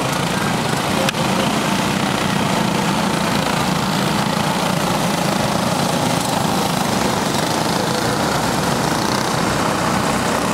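Several Clone-class racing karts with small single-cylinder four-stroke engines running at race speed as the pack passes, a steady engine drone. There is one sharp tick about a second in.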